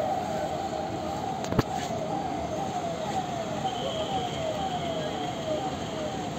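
Vehicle siren in a passing motorcade, sounding a short falling tone over and over, about two a second, over the steady noise of the convoy's vehicles. A single sharp knock comes about a second and a half in.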